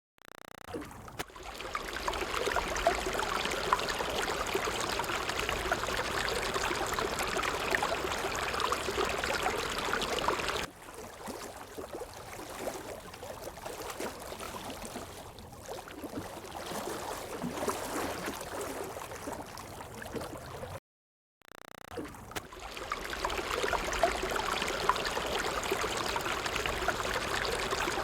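Running water, a steady rushing noise. About ten seconds in it drops abruptly to a quieter, more uneven water sound, then after a brief gap of silence about two-thirds of the way through the steady rush returns.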